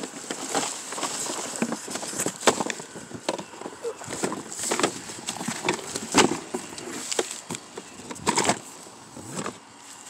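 Cardboard box and plastic packaging rustling and crinkling with irregular knocks and thumps as a pressure washer and its parts are handled and unpacked.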